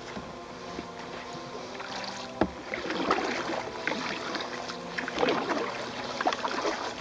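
Kayak paddle strokes splashing and dripping in calm water, with a sharp knock about two and a half seconds in.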